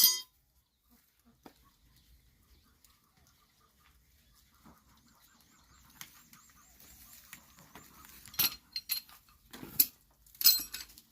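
A sharp click at the start, then several loud, sharp knocks and clatters in the last few seconds, over a faint, wavering high tone.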